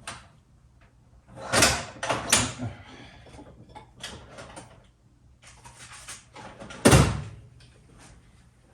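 A cardboard parcel being cut open and handled: a few sharp knocks and thuds with rustling between, the loudest thud about seven seconds in.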